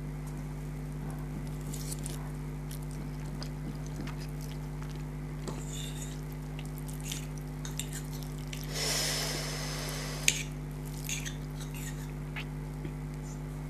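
Close-miked eating sounds from a bowl of spicy noodles: scattered small mouth and utensil clicks, a longer noisy wet slurp about nine seconds in, and one sharp click just after it. A steady low electrical hum runs underneath.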